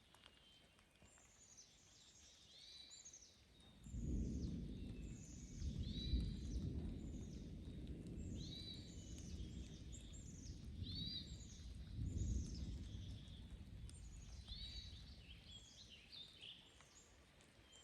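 A bird repeating short down-slurred chirps over and over, with a long low rumble of rolling thunder starting suddenly about four seconds in, swelling a few times and then fading away.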